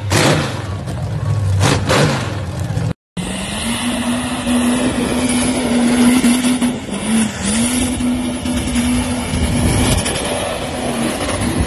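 A lifted Chevrolet pickup on tractor tyres revs hard in repeated bursts as it churns through mud. After a short break, a 4x4 SUV's engine is held at steady high revs while its wheels spin, clawing up a snowy, muddy rut. The revs dip briefly about midway.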